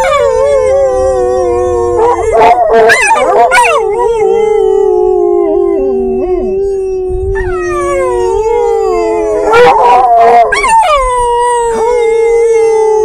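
Dogs howling inside a car: long drawn-out howls that slide slowly down in pitch, with two voices overlapping at times and choppier, broken-up stretches about two to four seconds in and again around ten seconds.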